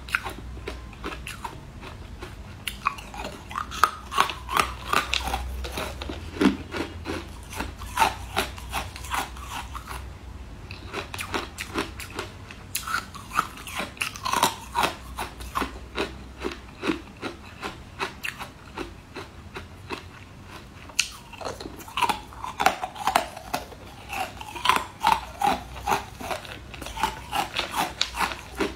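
Chunks of ice being bitten and chewed: many sharp, rapid crunches in runs, with short quieter lulls about ten and twenty seconds in.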